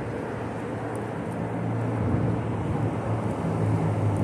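Low, steady engine drone, growing a little louder about halfway through, over a haze of wind noise.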